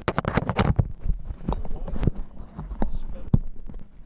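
Handling noise on the camera microphone: irregular close knocks, taps and rubbing as something moves against or right next to the camera.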